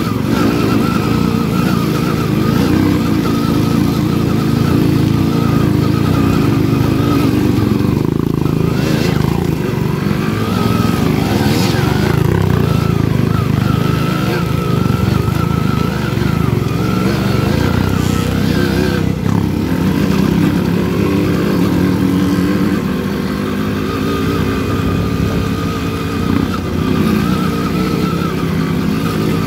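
Dirt bike engine running while riding a trail, its pitch rising and falling with the throttle, with brief drops about a third of the way in and again past the middle.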